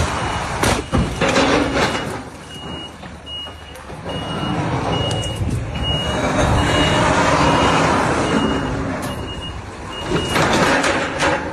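A vehicle's reversing alarm beeps steadily, a high single-tone beep about every 0.6 seconds, over engine and road noise. A few sharp knocks come in the first two seconds and again near the end.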